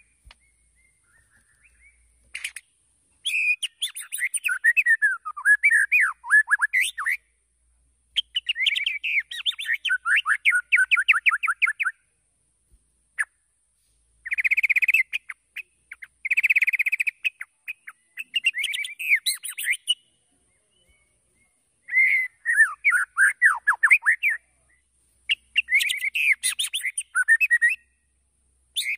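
White-rumped shama singing in bursts of varied phrases, each a few seconds long, with rapid trills and falling whistles, separated by short pauses.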